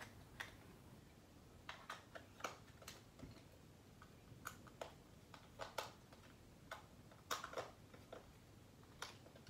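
Faint, irregular clicks and light taps of a small screwdriver working the screws of a plastic clamp meter's battery cover as it is closed up.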